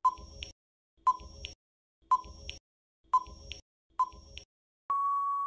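Quiz countdown timer sound effect: five short blips about a second apart, then a long steady beep near the end as time runs out.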